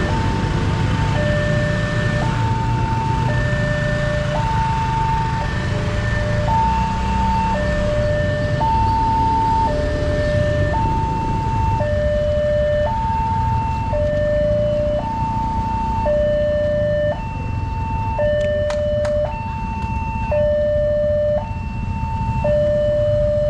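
Indonesian railway level-crossing alarm sounding its electronic two-tone warning: a higher and a lower tone alternate, each held for about a second, signalling that the barriers are closing for an approaching train. Motorbike engines run underneath, and a couple of sharp clicks come about two-thirds of the way through.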